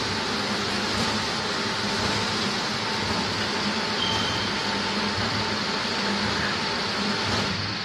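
Spindle-less rotary veneer peeling line running: a steady machine drone with a low hum and a faint whine, easing off a little near the end.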